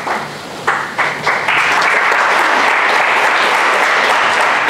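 Audience applauding: a few scattered claps, then full, steady applause from about a second and a half in.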